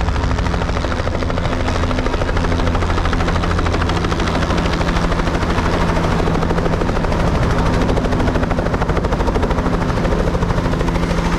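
Helicopter running steadily, a fast, even rotor chop over a constant low engine drone.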